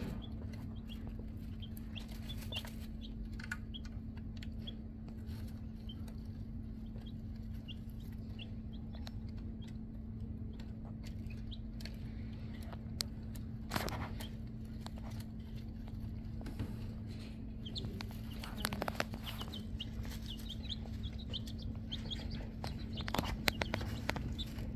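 Young domestic chicks peeping in many short, high cheeps, with scattered sharp clicks and rustles as they peck at a plastic feeder and scratch in hay, over a steady low hum.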